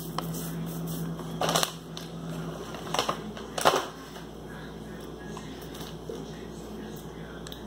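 Hands rubbing off chip crumbs, then a small cardboard snack box being picked up and handled, giving scattered crunches and clicks, the strongest about a second and a half, three and three and a half seconds in.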